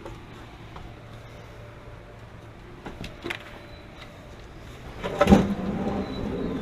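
A steady low hum with a couple of light clicks, then a loud bang a little after five seconds in, followed by a second or so of ringing, rattling noise.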